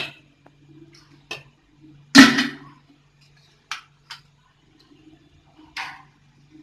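Kitchenware clinking and knocking half a dozen times, the loudest knock about two seconds in with a brief ring, over a faint low hum.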